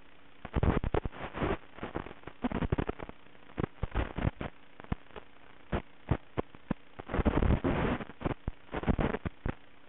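Irregular crackling bursts and sharp pops of radio static in the audio of an analog FPV drone video link, over a faint steady hum, denser and louder in the last few seconds.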